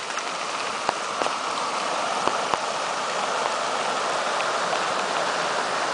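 Steady rushing of a creek running high after heavy rain, with a few faint sharp ticks.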